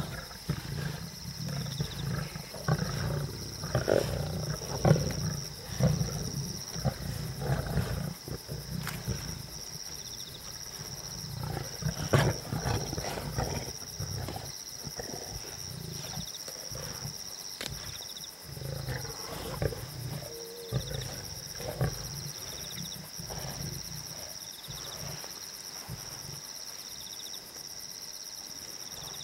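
Lions growling over a carcass as they feed, with sharp cracks of tearing and crunching. The growling is heaviest in the first half and eases off after that.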